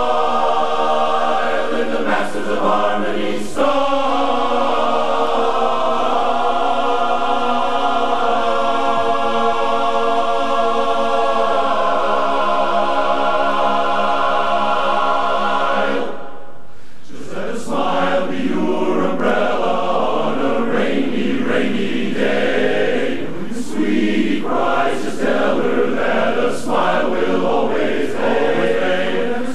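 Men's barbershop chorus of about 130 voices singing a cappella in close harmony, holding long chords, with a short break about sixteen seconds in before the singing picks up again.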